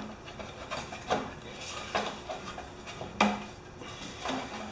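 Hand tools and metal parts clinking and knocking while the old ignition coil is taken off a lawn mower's engine: a few sharp clicks about a second apart, the loudest a little over three seconds in.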